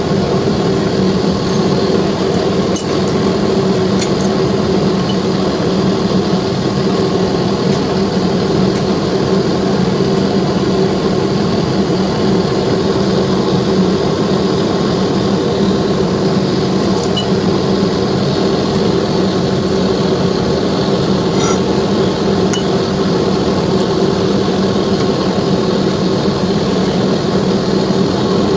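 Steady machine hum, with a few faint clinks.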